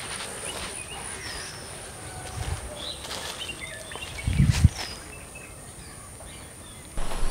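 Footsteps on grass and leaf litter, with a heavier step about two and a half seconds in and the loudest about four and a half seconds in, while small birds chirp now and then.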